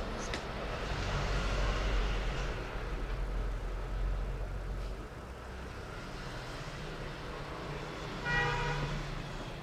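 Background traffic noise with a low rumble, and a vehicle horn sounding once for about a second near the end.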